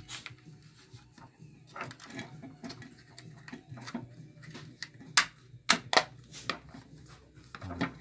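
Plastic handle casing of a tennis-racket fly zapper being handled and pressed together: a run of small clicks and taps, with a few louder snaps a little after five and six seconds in.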